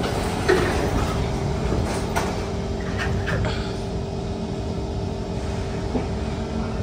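The sliding doors of a Kawasaki C151 MRT train car close with a thump about half a second in, followed by a few sharp clicks around two and three seconds. After that comes the steady hum of the car, with a faint held tone, heard from inside the cabin.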